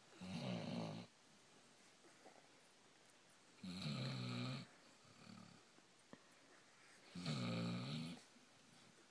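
Basset hound snoring: three snores of about a second each, spaced three to four seconds apart, with a fainter breath between the second and third.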